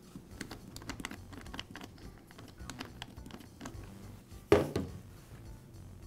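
Small plastic clicks and taps as the air filter cover is worked loose and pulled off a Husqvarna backpack blower, with one louder knock about four and a half seconds in.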